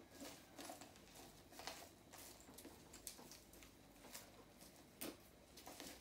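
Near silence with faint, scattered rustles and small clicks from plastic wrapping, tags and a belt being handled.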